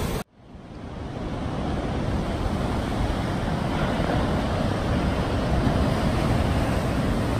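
Ocean surf against the coast with wind buffeting the microphone, a steady rushing noise heaviest in the low end. It cuts out abruptly just after the start and fades back in over about a second.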